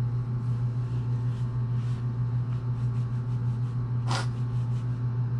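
A crying woman sniffs sharply once about four seconds in, with fainter sniffles earlier, over a steady low hum.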